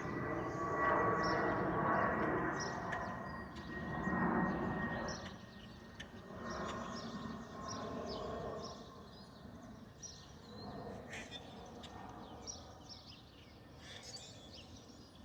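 Airbus A220-100's Pratt & Whitney PW1500G geared turbofan engines running with a steady high whine over a rumble, growing fainter over the first few seconds. After that a faint rumble remains, with birds chirping.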